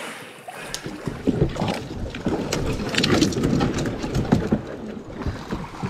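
Canoe being worked past fallen logs: the hull knocks and scrapes against the wood in a run of irregular bumps, busiest in the middle of the stretch.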